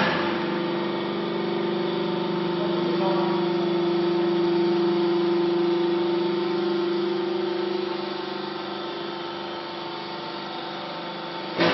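Hydraulic power pack of an NK30LT vertical clothes baler running, its electric motor and pump giving a steady pitched hum as the ram moves the platen and chamber gate; a sharp clank near the end.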